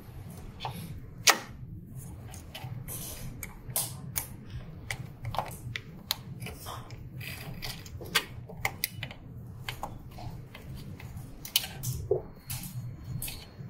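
Scattered small clicks and taps of plastic and metal parts as a printhead's ink damper holder is fitted and its screw tightened by hand with a small hex key, with one sharper click about a second in. A steady low hum runs underneath.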